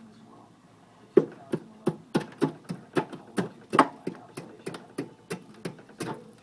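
Ice in a mini fridge's freezer being stabbed and chipped with scissors to break it loose for defrosting: a quick run of sharp, hard strikes, about three a second, starting about a second in.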